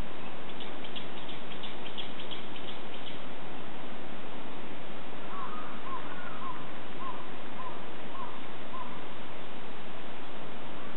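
A crow cawing about seven times in a row, roughly one caw every half second, starting about five seconds in, over a steady outdoor noise; a quick high twitter of small-bird notes comes in the first few seconds.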